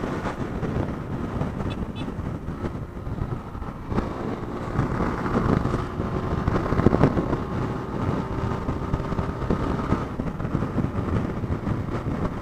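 Wind rushing over the microphone with engine and road noise from a vehicle on the move.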